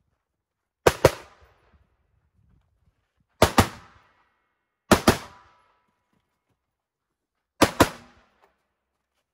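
Rifle fired in four quick double shots, about a fifth of a second between the two shots of each pair, with a short echo after each pair; the pairs come about a second in, near the middle twice, and near the end.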